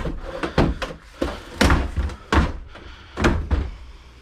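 Heavy thunks and knocks from an old desktop computer's case being pried apart and handled on a table, about five sharp hits in four seconds.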